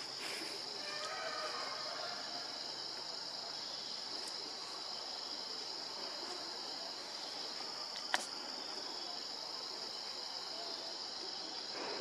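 Steady high-pitched insect drone, with one sharp click about eight seconds in.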